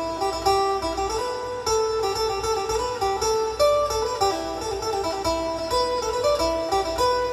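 Northeastern Thai (Isan) instrumental music played back through bookshelf speakers: a phin, a small plucked lute, picks out a quick melody of short separate notes over backing instruments with a steady low beat.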